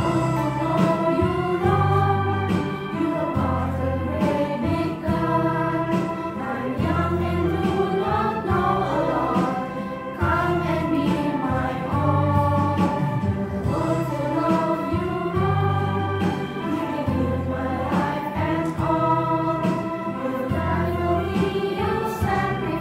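Children's choir singing a gospel praise song with instrumental accompaniment, a steady bass line moving under the voices.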